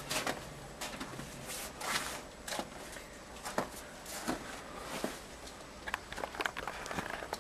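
Footsteps on snow, an irregular series of short steps about one or two a second.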